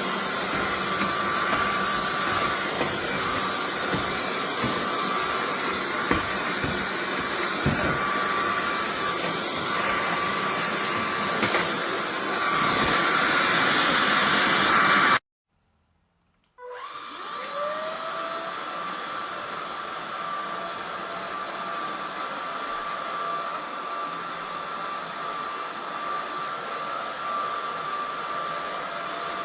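Buture JR400 cordless stick vacuum running with a steady whine, with knocks of the head against the floor in the first half and a louder stretch just before the sound cuts off suddenly about halfway. About a second and a half later the motor spins up again with a short rising whine and runs steadily, quieter than before.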